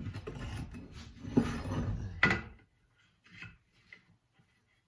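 Wooden pieces being handled: a rough rubbing and shuffling, with two sharp knocks about a second and a half and two seconds in, then a few faint taps.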